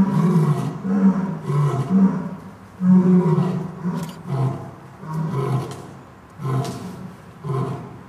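Adult lions roaring: a run of short, loud roars about two a second that slow and space out toward the end, the trailing grunts of a roaring bout.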